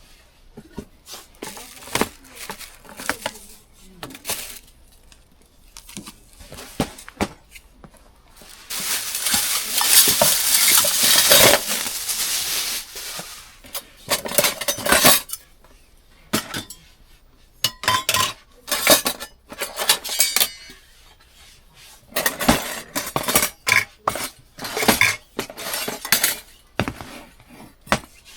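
Metal utensils and dishes clinking and knocking in scattered strikes, with a louder continuous scraping stretch of about four seconds near the middle.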